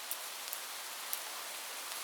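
Steady heavy rain falling on a roof, an even hiss with a few sharper drop hits standing out, three of them in the first second or so.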